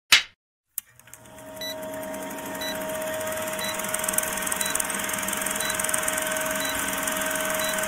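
A clapperboard clap sound effect, then a film-projector sound effect that starts with a click about a second in: a steady mechanical whir with a hum, a faint tick about once a second, and a gradual swell.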